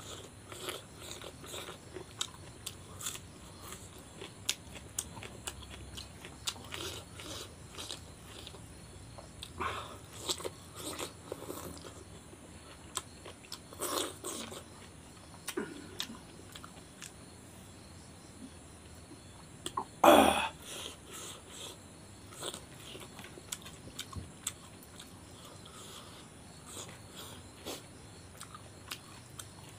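Close-up eating sounds: a man chewing and biting a mouthful of rice and chicken curry, with small clicks and squelches from fingers mixing food on the plate. About two-thirds of the way through there is one short, much louder noise.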